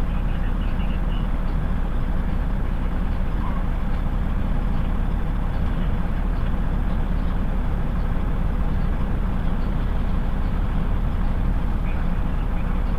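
Steady low drone of heavy diesel engines running, heard from inside a vehicle's cab through the windshield.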